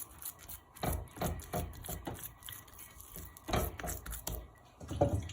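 Wet hands pinching off and patting soft harcha dough, giving a series of short soft knocks and slaps in a few clusters.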